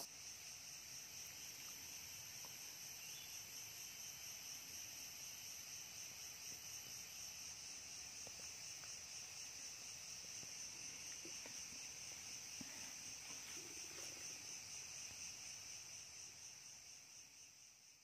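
Faint, steady, high-pitched chorus of forest insects, an evenly pulsing trill, fading out near the end.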